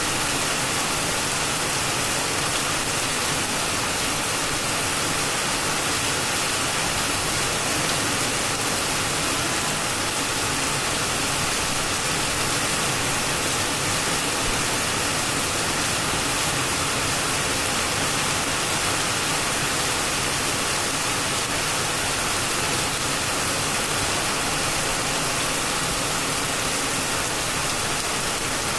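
Heavy rain falling on trees, leaves and a flat rooftop: a steady, unbroken hiss with no let-up.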